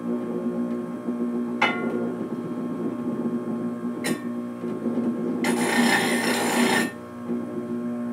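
Small bench grinder running with a steady hum while the teeth of a five-tooth circular saw disc are sharpened on its stone. There is a sharp tick about one and a half seconds in and another about four seconds in. A gritty grinding pass of about a second and a half comes near the end.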